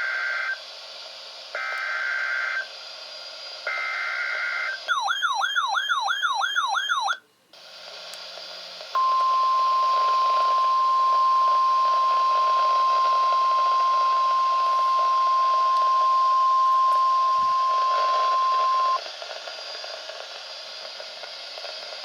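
Emergency Alert System weather radio alert: three one-second bursts of shrill buzzing SAME header data a second apart, then about two seconds of fast warbling siren-like tone. After a brief drop-out, the steady 1050 Hz NOAA Weather Radio warning alarm tone sounds for about ten seconds, and faint radio hiss follows.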